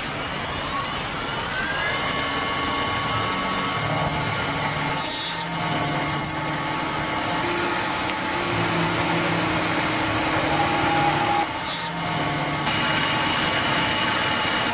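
CNC Baron milling machine running a cut: a steady machining noise with several motor whines that step up and down in pitch or drop in and out every second or two.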